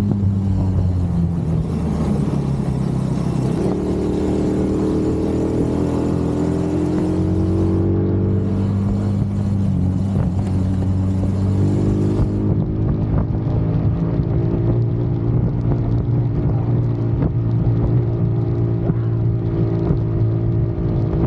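Small petrol engine of a Chinese mini Jeep running while it is driven, its pitch shifting a few seconds in and then holding fairly steady. A high hiss rides over it and drops away about twelve seconds in.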